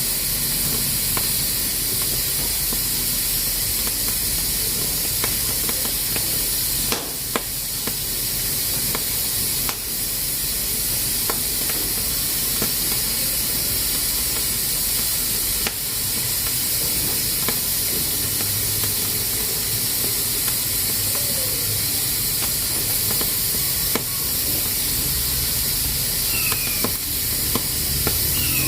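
Pressure cooker steadily hissing as it vents steam under pressure, with a few sharp clicks scattered through the hiss.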